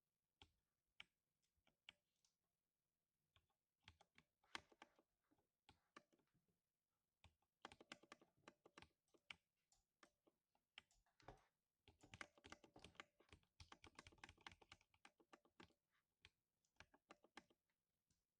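Faint typing on a lubed 60% mechanical keyboard, each keystroke a short thock. A few scattered presses give way to fast runs of typing, which thin out near the end.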